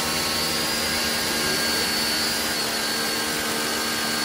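APR AP73 electric pressure washer running steadily on its first speed setting, drawing about 750 W while spraying: a broad hiss with a thin, high, steady whine over a low hum.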